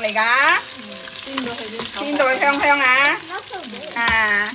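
Shrimp and egg sizzling in oil in an electric pressure cooker's inner pot while a spatula stirs and scrapes, with clicks from the utensil. Three drawn-out squeaks, near the start, in the middle and near the end, are the loudest part.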